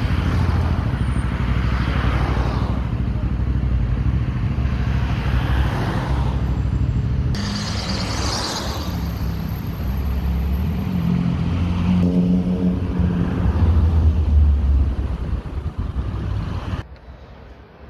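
Slow-moving street traffic: engines of cars, a van and motorcycles running in a queue, with vehicles passing close by one after another. The sound drops away abruptly about a second before the end.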